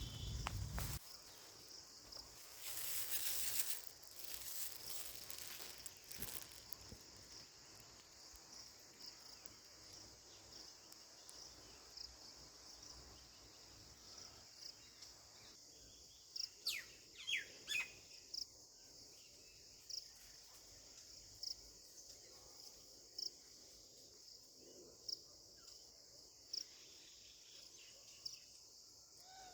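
A faint, steady, high-pitched insect chorus with a few quick bird chirps past the halfway point, then a short call repeating every second or two. There is a brief rush of noise near the start.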